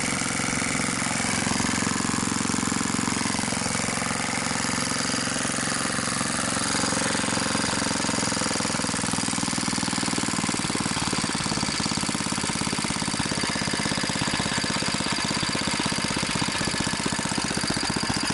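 BSA 220cc single-cylinder governed engine running steadily at its working speed, with a rapid, even firing beat.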